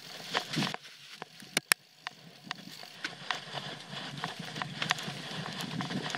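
Trek Full Stache 8 full-suspension mountain bike riding over a rough dirt trail: tyre noise with irregular knocks and rattles from the bike over bumps, and two sharp clacks about a second and a half in.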